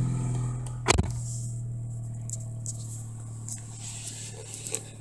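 2005 Chrysler Sebring's engine idling just after a cold start, at a raised cold idle a little over 1000 rpm: a steady hum that slowly gets quieter. A single sharp click about a second in.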